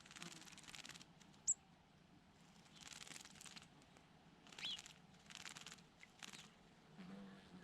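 Small birds at a pool giving a few short, high chirps, one sharp chirp about a second and a half in and a wavering one a little after the middle, among faint bursts of rustling.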